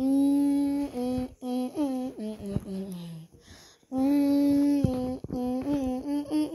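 A voice humming a wordless made-up TV-logo jingle: two similar phrases, each opening on a long held note, with a short break a little past halfway.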